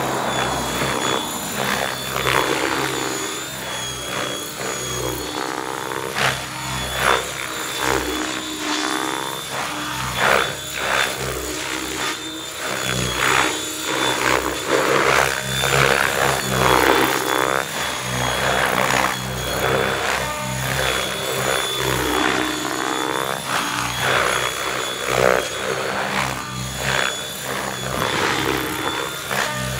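Electric RC helicopter (Mikado Logo 600 with a Pyro 650 motor on 6S) flying aerobatics: the rotor blades whoosh in repeated swells every second or two as it pitches and turns, over a steady high motor whine.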